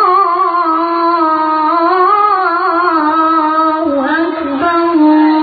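A child's high voice chanting Quran recitation in the melodic tilawah style, holding a long wavering ornamented note, breaking briefly about four seconds in and then settling on a steady held note.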